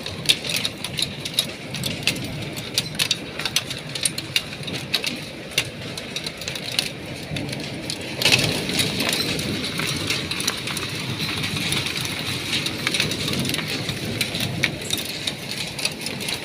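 Hail and heavy rain striking the window and its ledge: a dense patter of sharp ticks over a steady hiss of rain. The downpour grows louder about eight seconds in.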